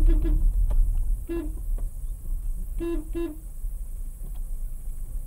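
Car horn sounding in short toots: one at the start, another just over a second in, then two in quick succession about three seconds in. A low road rumble from the moving car runs underneath.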